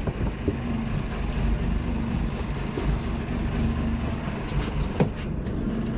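Sport-fishing boat's engine running steadily under wind and water noise, with a sharp click about five seconds in.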